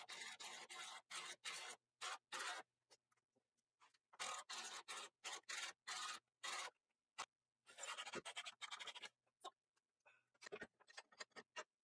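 Runs of quick scratching strokes over a surface, in groups separated by pauses of about a second, thinning to a few light scratches near the end.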